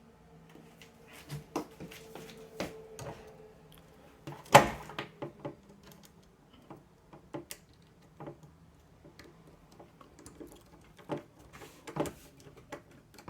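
Scattered clicks and knocks of a hard drive, its drive tray and screws being handled, with one sharper knock about four and a half seconds in, over a faint steady hum.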